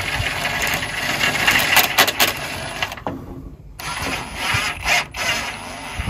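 Cordless impact gun running bolts in, in two bursts with a short pause about three seconds in.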